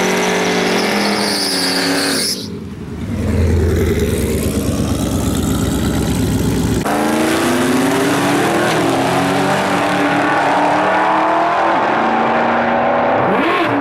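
Ford SVT Lightning pickups' supercharged V8 engines revving through burnouts, then running hard side by side down the drag strip. The sound changes abruptly about two and seven seconds in, with a deeper rumble in between.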